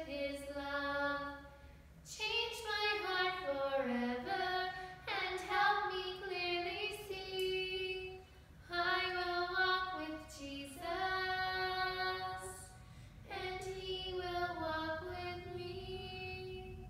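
A woman and a young boy singing a Primary children's song together, unaccompanied, in phrases with held notes and short breaks between lines.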